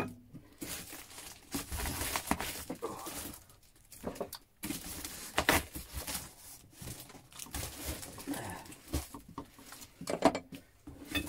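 Plastic wrapping (bin bag and cling film) crinkling and rustling on and off as tools are unwrapped, with small knocks of handled tools.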